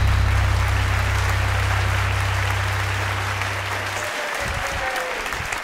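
Audience applauding steadily under a held low bass note from the intro music, which cuts off sharply about four seconds in.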